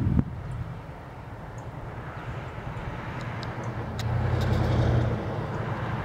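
Motor vehicle engine running, a low hum that swells to its loudest about four to five seconds in and then eases off.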